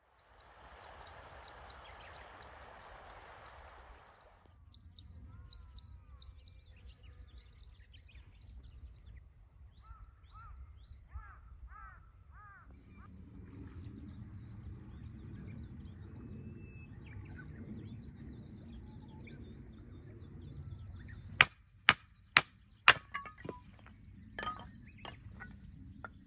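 Birds chirping over wind rumbling on the microphone, then near the end four sharp, loud strikes in quick succession and a few lighter knocks: firewood being split.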